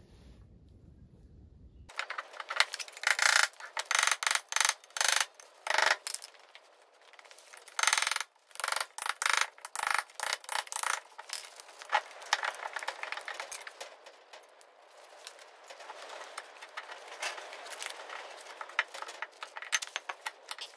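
Metal clinks, knocks and rattles of tools and steel parts as the front-axle steering swivel housing of a Ford TW25 tractor is worked loose and lifted off by hand. They start about two seconds in with a run of sharp irregular knocks, then go on as quieter, denser clicking and rattling.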